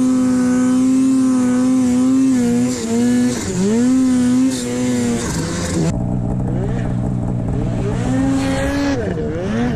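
Arctic Cat snowmobile engine running hard, its pitch dropping and climbing again and again as the throttle is worked. A high hiss over it drops away about six seconds in, after which the engine sounds duller.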